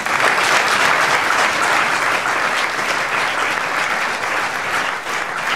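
Theatre audience applauding, a dense, steady clapping that starts suddenly.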